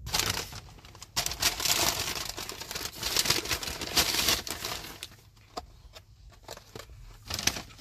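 Paper takeout bag crinkling and rustling as it is opened and rummaged through, dense for the first five seconds, then a few scattered rustles, with a brief louder one near the end.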